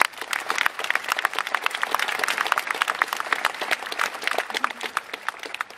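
Crowd applauding, a dense patter of many hands clapping that thins out near the end.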